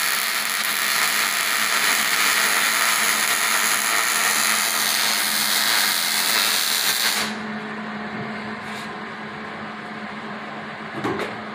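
Electric arc welding on steel roll-cage bars: the arc crackles and hisses steadily, then cuts off suddenly about seven seconds in. A steady low hum continues after, with a couple of light knocks near the end.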